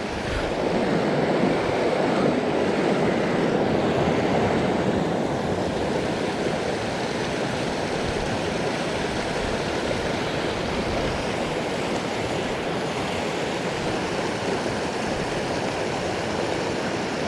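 Mountain trout stream flowing, a steady rushing of water, a little louder over the first few seconds.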